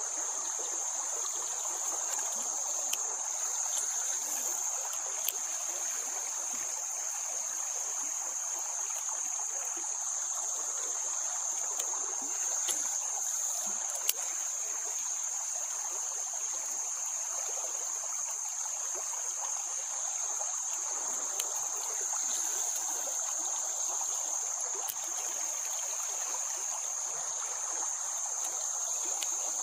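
Steady high-pitched drone of insects in an unbroken single band, over an even hiss, with a few small clicks scattered through.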